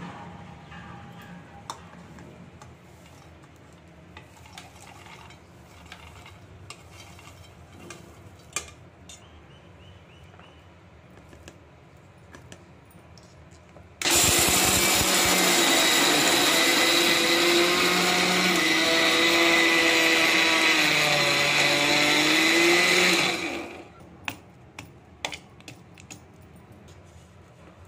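Electric mixer grinder running loud and steady for about nine seconds from halfway in, its small steel jar grinding dry roasted chillies, the motor's pitch wavering slightly as the load shifts. Before and after it there are only light knocks and clinks.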